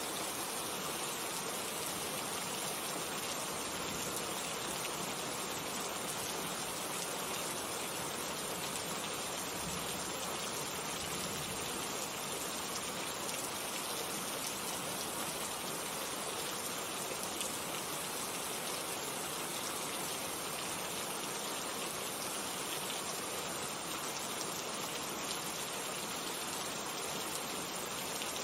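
Steady rain falling, a dense even patter of raindrops without pauses.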